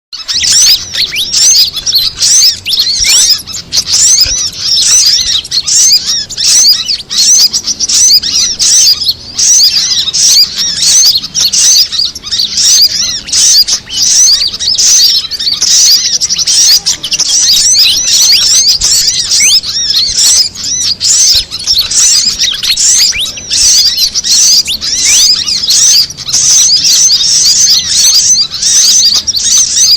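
Bird-luring recording of small songbirds chirping and twittering densely and without pause, high-pitched and overlapping: fantail calls mixed with sunbird calls.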